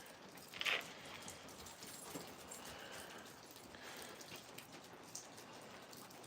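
Faint, steady patter of freezing rain, with one brief, louder rasping noise under a second in.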